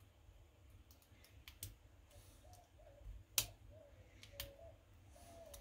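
Scattered small clicks of a lock and its parts being handled as it is taken apart, with one sharper click about three and a half seconds in.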